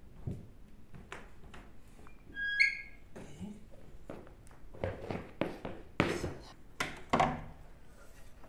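Footsteps in rubber galoshes on wooden floorboards, with knocks and thuds from a wooden door and its latch being handled. The loudest knocks come in a cluster in the second half. A short high squeak sounds about two and a half seconds in.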